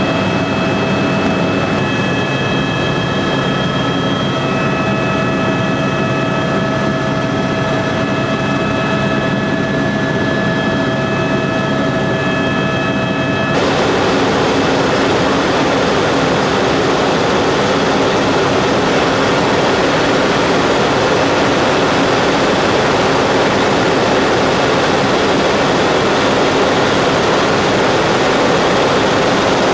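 Aerospatiale helicopter in flight, heard from inside the cabin: a steady turbine whine of several high tones over the low hum of the rotor and engine. About halfway through, the whine cuts out suddenly and a louder, even rushing noise takes over.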